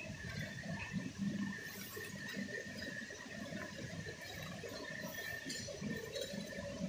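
Facial tissue packing machine running with a steady hum and whine, while soft tissue sheets and plastic wrap rustle as tissues are pulled out of a packed bag by hand.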